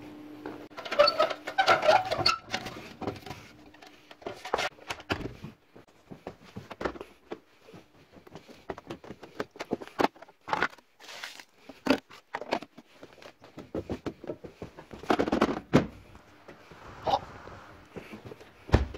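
Scattered knocks, taps and clicks from handling a plastic dehumidifier water tank, with footsteps between them.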